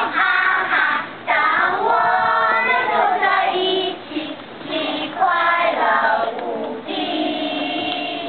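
A group of preschool children and a woman teacher singing a song together in Mandarin, in phrases with held notes and short breaks between them.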